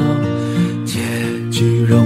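Instrumental break in a Chinese pop ballad: plucked guitar over held chords, with a stroke on the beat roughly every second.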